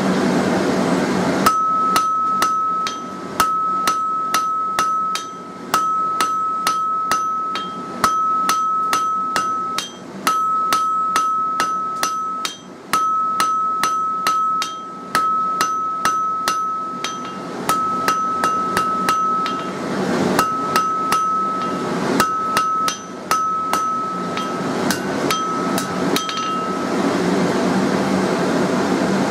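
Hand hammer striking hot mild steel on an anvil, drawing out the steel in runs of quick, even blows, about two or three a second, with brief pauses between runs. The anvil gives a steady high ring that carries between the blows.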